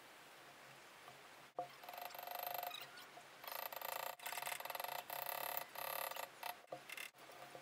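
A hand tool working the metal of a motorcycle gas tank: a sharp click about a second and a half in, then rapid grating in two stretches, the second one longer, with a few more clicks near the end.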